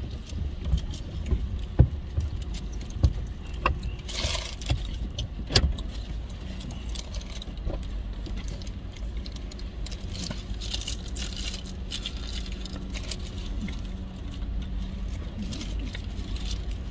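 Paper sandwich wrapper crinkling and rustling in the hands, with scattered clicks and taps, over a steady low rumble inside a car.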